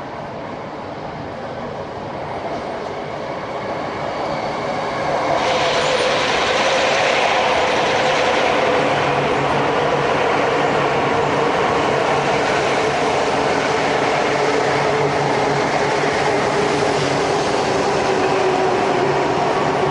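E4 series Max double-decker Shinkansen running into the station: it grows louder as it approaches, jumps up sharply about five seconds in as the front car reaches the microphone, then the cars roll past in a steady rumble of wheels on rail with a low hum.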